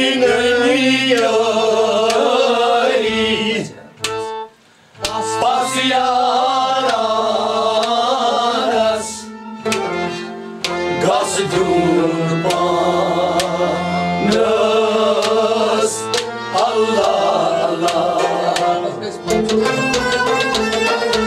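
Kashmiri Sufi ensemble music: a harmonium drone with a winding melody on bowed strings, and hand-drum strokes that become fast and even near the end. The playing stops briefly about four seconds in.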